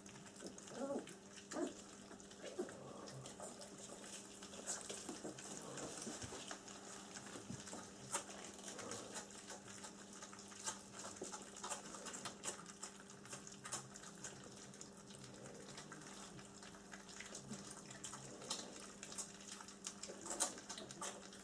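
Three-week-old German Shepherd puppies lapping and smacking at their food in a shared bowl: a steady run of small, wet clicks, over a faint steady hum.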